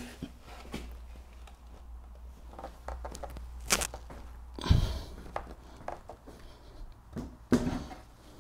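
A partly built wooden staircase, treads fitted to one string, being lifted and flipped over by hand: scattered knocks and clicks of the timber, a dull thump a little after the middle, and shuffling footsteps.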